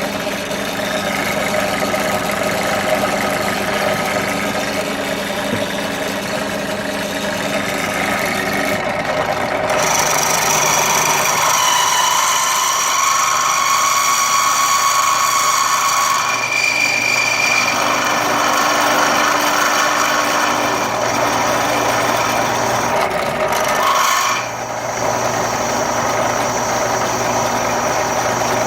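Electric drill running under load, its 17/64-inch titanium-coated twist bit grinding slowly through metal with a steady motor hum and a scraping cut. The sound shifts several times as the feed pressure changes. It is a cheap bit that cuts poorly without plenty of cutting lubricant.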